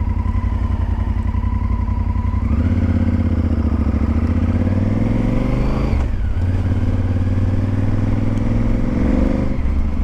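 Honda Varadero's V-twin engine under way, running steadily, then pulling up in pitch about two and a half seconds in. The revs drop sharply for a gear change about six seconds in, climb again, and fall off near the end.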